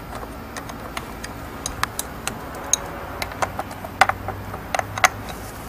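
Irregular light metallic clicks and clinks of a hand tool on coax F-connectors and a splitter in a cable box. Two sharper, ringing clinks come about four and five seconds in.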